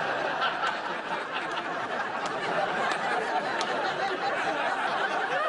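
Studio audience laughing, a steady wash of many people's laughter.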